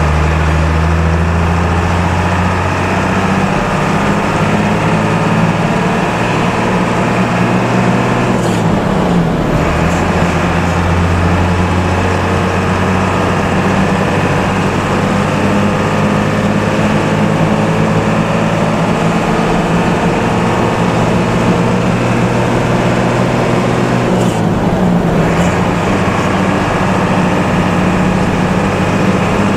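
Intercity bus engine running under load at highway speed, heard from inside the cabin as a loud, steady, low drone that climbs slowly in pitch. The engine note dips and picks up again twice, about eight seconds in and near the end, as the gears are shifted.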